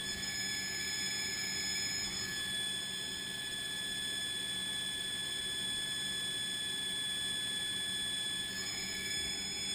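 Steady mechanical whine: several constant high tones over an even rushing noise, with a fainter wavering tone that comes in at the start and again near the end.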